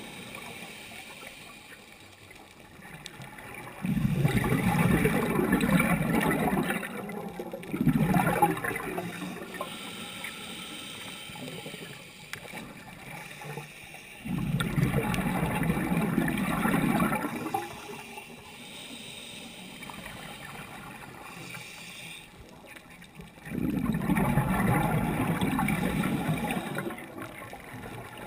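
Scuba regulator exhaust underwater: a diver's exhaled bubbles rushing out in three bursts of about three seconds each, roughly nine seconds apart, with a quieter water hiss between.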